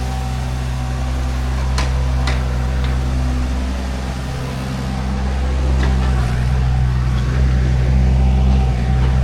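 An engine running steadily at constant speed, with a few sharp clicks about two seconds in and again near six seconds.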